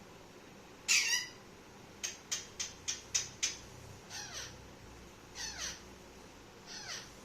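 Pet parrot calling: a loud harsh squawk about a second in, then a quick run of about six short sharp calls, then three calls that each fall steeply in pitch.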